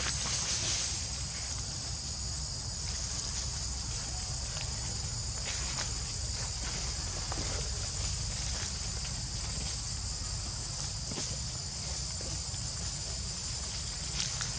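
Steady, high-pitched chorus of insects shrilling without a break, over a low steady rumble and a few faint ticks.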